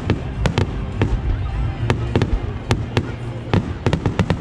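Aerial fireworks bursting: a dozen or so sharp bangs at irregular intervals over a continuous low rumble.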